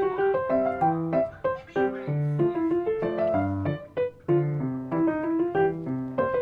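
Background piano music: a gentle melody of clear single notes over a repeating bass line.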